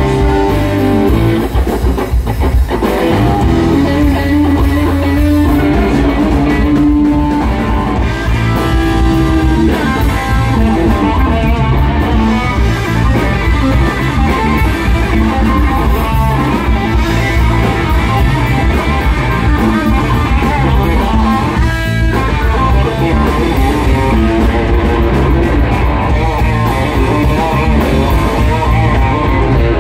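Live blues-rock trio playing an instrumental passage: an electric guitar leads over bass guitar and drums, with long held guitar notes in the first several seconds.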